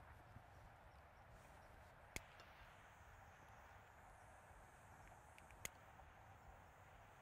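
Near silence: faint outdoor ambience, broken twice by a single sharp click, about three and a half seconds apart.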